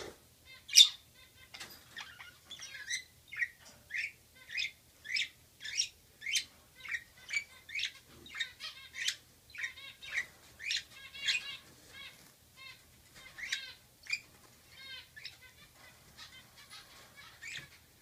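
Budgerigars chirping in a quick run of short, sharp chirps, about two a second, with one loud chirp about a second in. The calls thin out near the end. This is courtship chatter between a pair.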